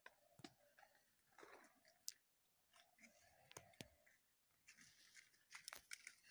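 Near silence, with faint scattered clicks and soft rustles.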